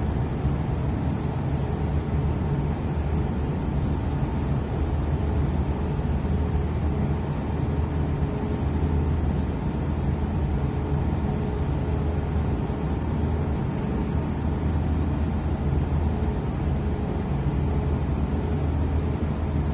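A ship's engines and machinery droning steadily, heard on deck: an even low hum with a few steady tones and no change in speed.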